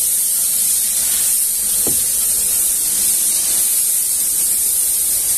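A steady, high hiss, with a single short knock about two seconds in.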